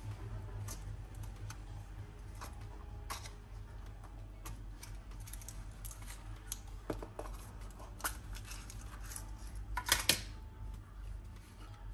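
Scattered light clicks and rustles of fabric and sewing pins being handled on a table, with a quick rattle of pins in a small plastic pin box near the end, the loudest moment. A low steady hum underneath.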